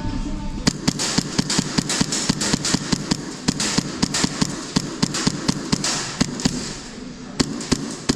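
Airsoft guns firing a long string of rapid shots, several a second, stopping about two-thirds of the way in, then two more shots near the end.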